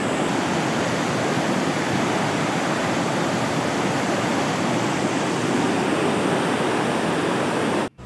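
Heavy, fast flow of water pouring over the Bantimurung waterfall and rushing down the river below: a steady, even rushing noise. It cuts off abruptly near the end.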